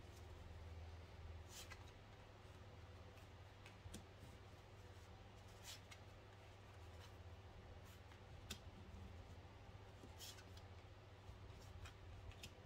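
Faint rustles and soft snaps of cards being drawn from a hand-held deck and laid onto a tabletop spread, one every couple of seconds, over a low steady room hum.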